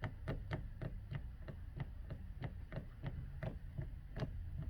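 Faint, steady mechanical ticking, about four even ticks a second.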